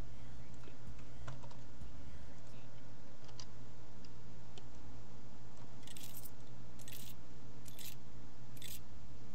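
Scattered light clicks of a computer keyboard and mouse in use, then four short, louder scratchy bursts about a second apart near the end, over a steady low hum.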